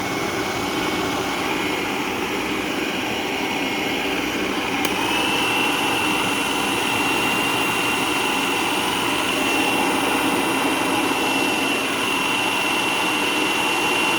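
Food processor motor running steadily with a whine while it purees the dog food. About five seconds in there is a click, and the whine steps up to a higher pitch and gets a little louder, then holds steady.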